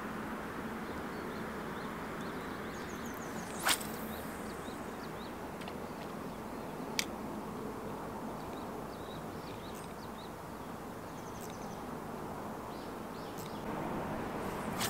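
Steady outdoor hiss of river ambience, with one sharp swish a little over a third of the way in and a single short click about halfway, and faint bird chirps over it.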